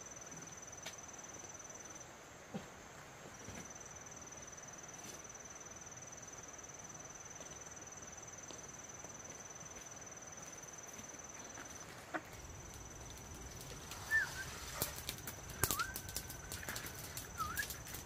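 Crickets trilling in one steady high tone, broken off briefly twice. In the last few seconds sharp clicks and knocks and a few short chirps come in.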